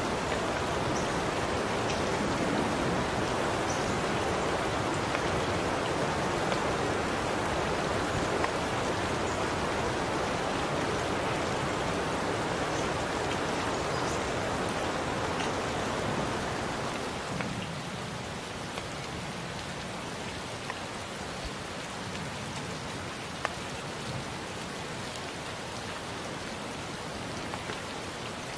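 Steady rain falling, a dense hiss with scattered drops pattering on a surface. It eases slightly about two-thirds of the way through.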